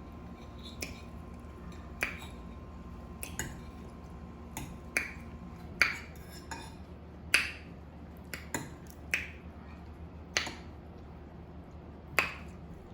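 About a dozen sharp, irregularly spaced clicks and smacks from people eating at a table.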